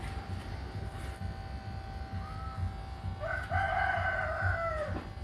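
A rooster crowing: a short note, then one long call about three seconds in that falls off at the end. Under it runs the steady hum of corded electric hair clippers cutting hair.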